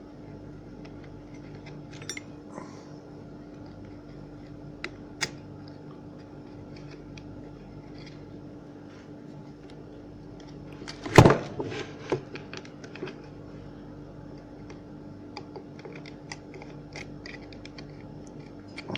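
Scattered small clicks and taps from handling the impact drill's plastic housing and wiring, with one louder knock about eleven seconds in followed by a quick run of clicks, over a steady low hum.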